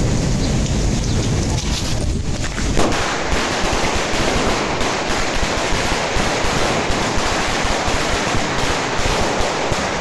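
A string of red paper firecrackers (a cracker garland) goes off about three seconds in: a rapid, unbroken run of small bangs that keeps going.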